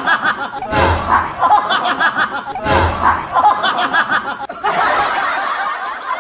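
Laughter that repeats in a loop about every two seconds, each repeat opening with a low thud. About four and a half seconds in, the sound changes to a denser, duller stretch of laughter.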